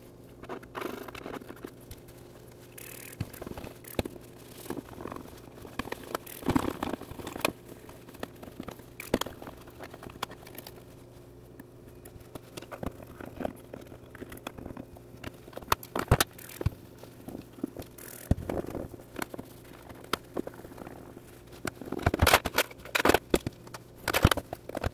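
Hands working on a home sewing machine: scattered small clicks, taps, scrapes and rustles of handling parts, with a louder flurry of clicks near the end, over a faint steady hum.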